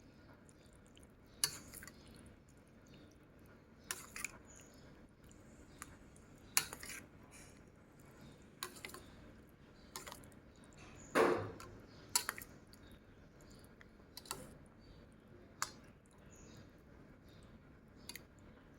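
Someone eating: scattered sharp clicks and crunches of chewing and utensils on a dish, with one longer, louder noise about eleven seconds in.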